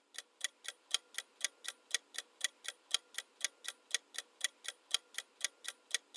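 Ticking-clock sound effect of a countdown timer: short, even ticks at about four a second.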